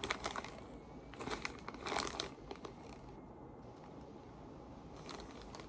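MRE plastic packaging crinkling and rustling as it is handled, in bursts at the start, again at about one to two and a half seconds in, and briefly near the end.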